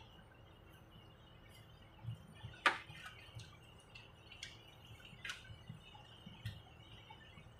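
Plastic wire-harness connectors and wires being handled inside an opened inverter welding machine: scattered faint clicks and light knocks, the sharpest about two and a half seconds in.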